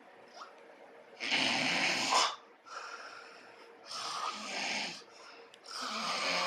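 A sleeping person snoring loudly, with breaths of about a second each roughly every one to two seconds; the first snore is the loudest.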